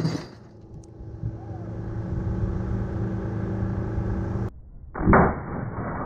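A live .50 BMG cartridge going off inside a running microwave oven: a few seconds of the microwave's steady hum, then a loud sharp bang about five seconds in as the case bursts.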